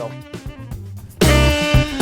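Background music with guitar and bass, getting much louder a little over a second in.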